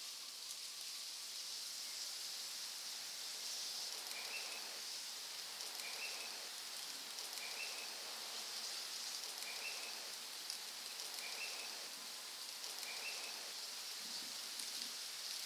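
A bird repeating a short, high chirp six times, about every one and a half to two seconds, over a steady high hiss of rain or insects in the forest.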